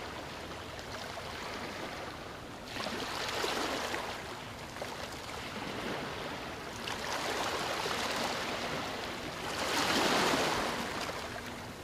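Rushing water noise of an underwater recording, swelling and fading three times.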